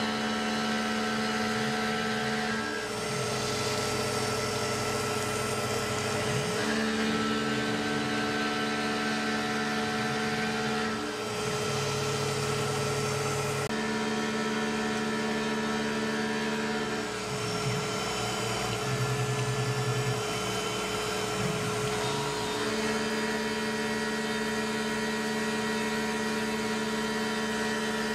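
Tormach PCNC 1100 CNC mill roughing a deep pocket in aluminum with a half-inch end mill under flood coolant: a steady whine of spindle and cutting tones, with the cutting pitch shifting every few seconds as the cut changes.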